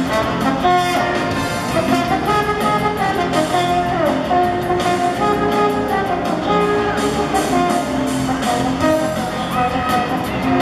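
Circus band music led by brass instruments, playing a continuous melody over a steady accompaniment.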